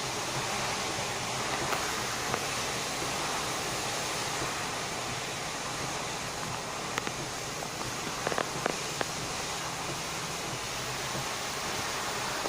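Steady rushing noise of typhoon wind and rough surf, with a few short ticks about seven and eight to nine seconds in.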